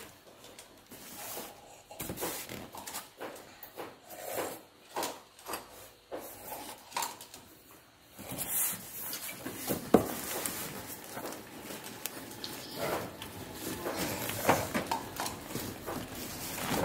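Cardboard box and foam packing being handled: flaps rustling and scraping, foam rubbing and squeaking, and irregular knocks as a heavy dough press machine is worked out of its box.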